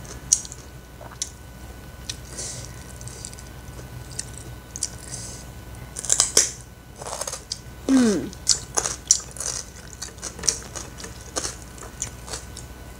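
Close-up chewing and lip-smacking of rice and fried salted fish eaten by hand, with many wet mouth clicks. There is a short falling hum about eight seconds in.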